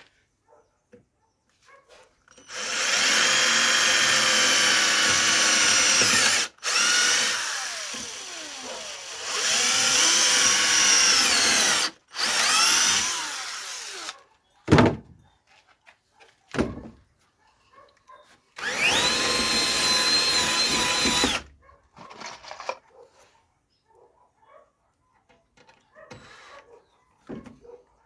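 Electric drill running into wood in several bursts of two to four seconds, with a few short knocks in a pause between them. The last burst holds one steady pitch.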